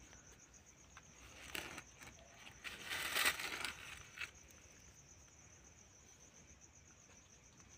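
Crickets chirring steadily in the background, a fast-pulsing high trill. A brief rustle and scrape of handling comes about three seconds in, as a hand reaches to the potted plant.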